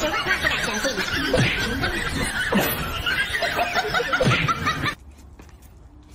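Snickering, chuckling laughter in quick repeated bursts, cutting off abruptly about five seconds in.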